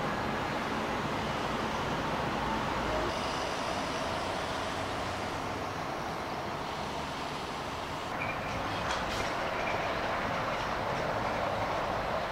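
Steady rumble of motor-vehicle traffic, with no single event standing out.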